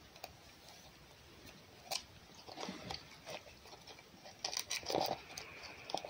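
Red fox chewing and crunching food, a run of irregular crunches and wet bites that starts about two seconds in and is loudest near the end.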